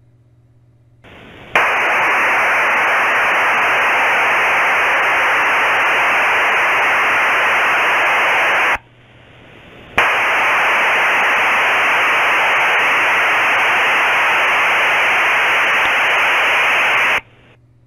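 A third-generation automatic link establishment (3G ALE) HF radio transmission is heard as received audio: two loud bursts of even, hiss-like modem signal, each about seven seconds long, with a gap of about a second between them.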